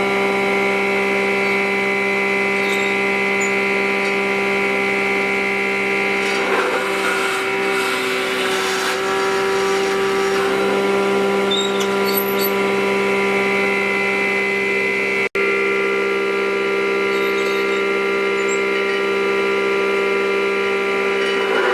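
Electric power tool motor running steadily at one constant pitch, with a brief stretch of rougher noise as it works the wood. The sound cuts out for an instant about fifteen seconds in.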